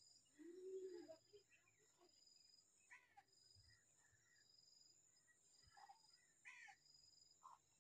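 Faint outdoor ambience: a steady high insect drone with a high chirp repeating about once a second, and a few short bird calls, two of them quick downward trills. A short low call sounds about half a second in.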